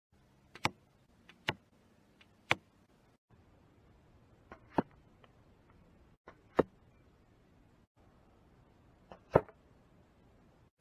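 Arrows shot from a bow into 3D foam archery targets, six times in a row. Each shot is a faint snap of the bow followed a fraction of a second later by the sharper smack of the arrow striking the foam; the last hit is the loudest.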